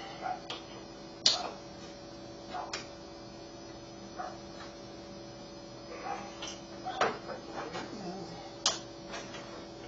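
A few sharp clicks and light knocks as a hand tool and small parts of an electrical plug are handled on a tabletop, over a faint steady hum.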